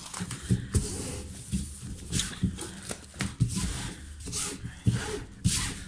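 A rolled diamond painting canvas being unrolled and pressed flat by hand on a wooden table: irregular rustling and crinkling of the stiff sheet, with soft knocks as the hands smooth it down.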